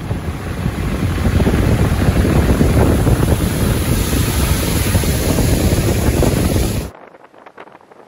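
Steady, loud rush of a waterfall's water pouring over rocks, cutting off abruptly about seven seconds in. A much quieter vehicle ride on a wet road follows.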